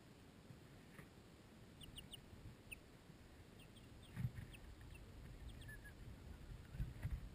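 Young Sussex chicks peeping faintly: short, high peeps scattered a few at a time. Soft low thumps come about four seconds in and again near the end.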